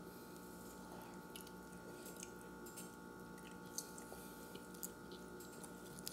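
Faint chewing and mouth clicks of someone eating a soft, cheesy tortilla quesadilla, over a steady faint hum.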